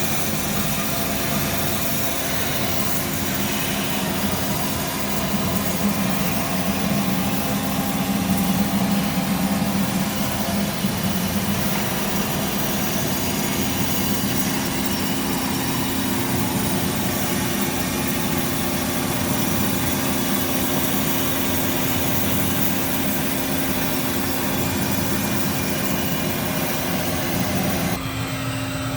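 Kasto Twin A3 industrial horizontal bandsaw running: a steady machine hum with a constant hiss over it. The hiss drops away suddenly near the end while the hum goes on.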